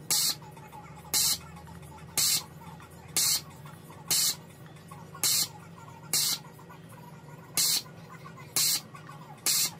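Heated desoldering pump sucking molten solder off circuit-board pins, a short hiss of suction about once a second, over a steady low hum.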